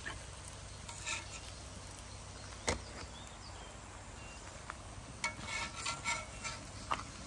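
Pancake batter sizzling on a hot muurinpohja griddle pan, with a few short sharp clicks; the loudest comes about two and a half seconds in.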